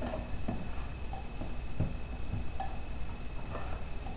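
Wooden spoon stirring sticky pizza dough in a stainless steel mixing bowl, working in the olive oil, with irregular soft knocks and scrapes of the spoon against the bowl.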